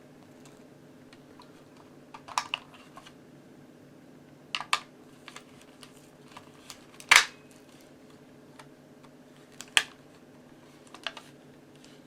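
Scattered sharp plastic clicks and taps from handling a Siterlink smoke/carbon monoxide alarm while its batteries are fitted, the loudest about seven seconds in, over a steady low hum.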